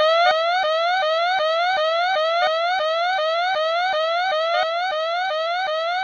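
Electronic timer alarm going off at the end of a ten-minute countdown. It makes a fast, repeating rising whoop, nearly three sweeps a second, each climbing in pitch and then snapping back down.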